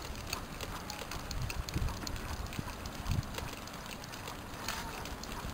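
Dog sulky rolling along pavement behind trotting dogs: steady wheel and road rumble with many light clicks and rattles, and wind buffeting the microphone.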